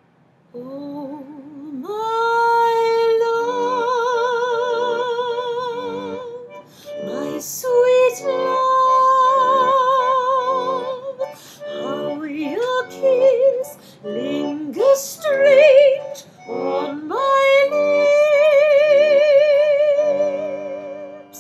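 Song with a high, operatic singing voice holding long notes with a wide vibrato over a steady, repeating chordal accompaniment, the phrases broken by short pauses.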